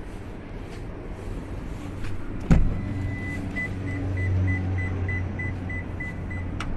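Suzuki Spacia's power rear sliding door opening: a clunk as the latch releases, then the door motor hums while the warning buzzer beeps about three times a second, ending in a click as the door stops.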